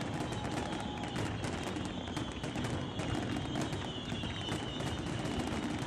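Fireworks crackling: a dense, continuous run of small pops over a low rumble of crowd noise, with a thin high whistle wavering through it.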